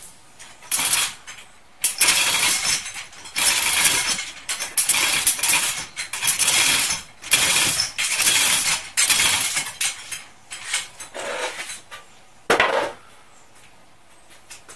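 Hand chain hoist being pulled, its chain rattling in repeated pulls of about a second each as a heavy battery pack is lifted, with one sharp metallic knock near the end.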